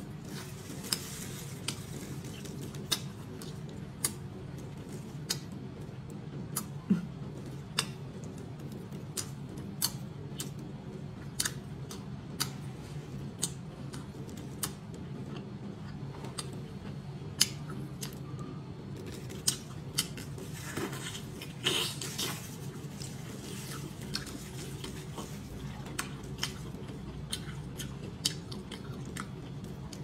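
Close-miked eating sounds of someone chewing spicy octopus: wet chewing with sharp smacking clicks every second or so, and a few longer slurping noises about two thirds of the way through, over a faint steady low hum.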